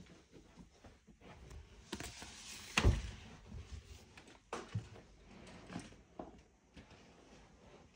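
Faint scattered clicks and knocks, with one louder thump about three seconds in.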